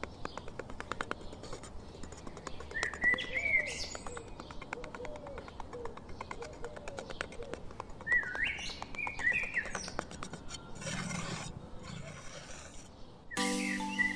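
Small steel hand trowel scraping and tapping over a gritty sand surface in quick repeated strokes, while birds chirp a few times in the background. Music comes in near the end.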